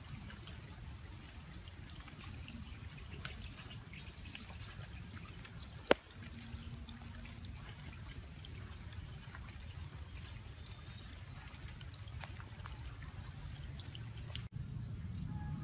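Outdoor background sound: a low steady rumble with faint scattered bird chirps. One sharp click about six seconds in.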